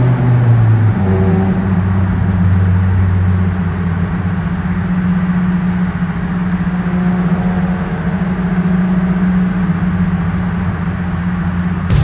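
Nissan Maxima's VQ V6 engine and exhaust droning steadily at cruise, heard from inside the cabin while driving through a road tunnel. The note changes about a second in, then holds steady.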